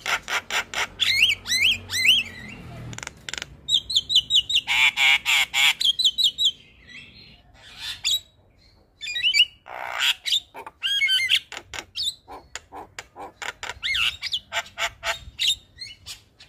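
Javan myna singing: harsh chattering made of rapid rattling clicks mixed with rising squeaky whistled notes, in several bursts with a short pause about halfway through.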